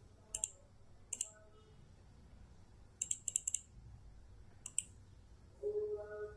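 Computer mouse clicking: single clicks, then a quick run of four or five clicks about three seconds in and a pair shortly after. A brief pitched hum is heard near the end.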